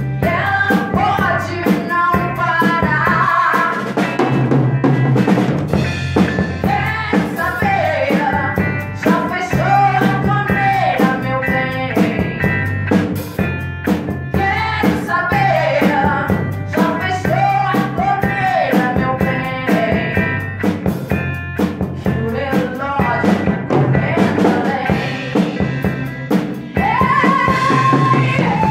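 A live rock band playing in a rehearsal: a woman sings the lead into a microphone over two amplified electric guitars and a drum kit keeping a steady beat.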